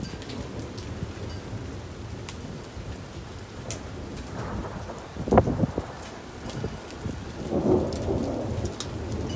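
Steady rain falling on a wooden deck, with thunder rumbling during a storm. A sharp loud crack about five seconds in, followed by a longer swell of rumbling near the end.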